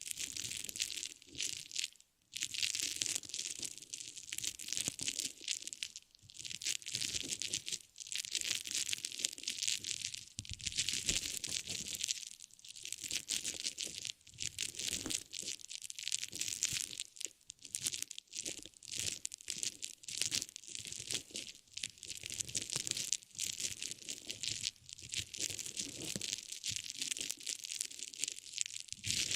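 Close-up crinkling and crushing of a crinkly material handled by hand, a dense crackle in long stretches broken by short pauses.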